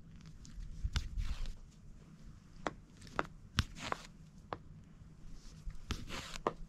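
Scratchy rustling of embroidery thread being pulled through stitched cloth, three long pulls about a second, four seconds and six seconds in, with light clicks and taps from handling the cloth.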